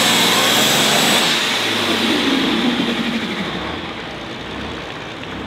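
Heavy super stock pulling tractor's turbocharged diesel engine running hard with a high steady whine; the whine cuts off about a second in as the engine backs off, and the engine noise dies down over the next few seconds.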